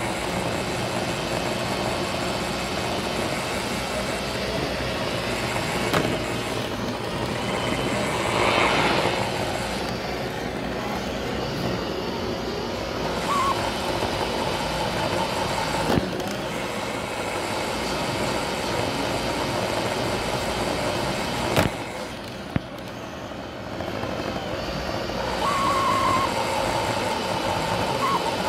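Roomba robot vacuum running with its microphone riding on top: a steady whir of its motor and brushes, broken by a few sharp knocks, with a steady higher whine coming in near the end.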